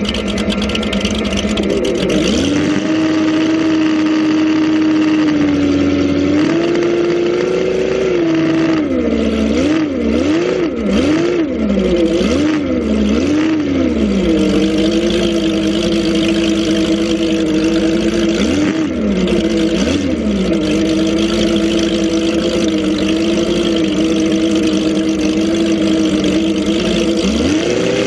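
Ski-race boat's engine running hard under way, its pitch climbing a couple of seconds in, then swinging up and down about once a second for several seconds, dipping twice later on and rising again near the end. A steady rush of churning wake water runs beneath it.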